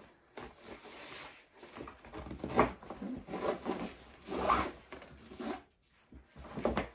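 Packaging being handled during an unboxing: a series of irregular rustles and rubbing scrapes, the loudest about two and a half and four and a half seconds in.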